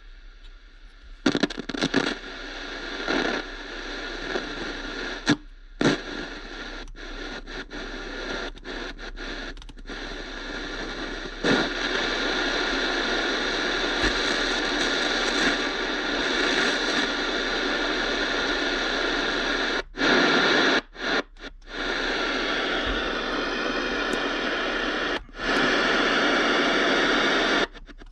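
Stock third-generation Camaro radio putting out hissing static, cutting out abruptly for short moments several times. The radio has just been wired up with solder connectors and is powered on for a test.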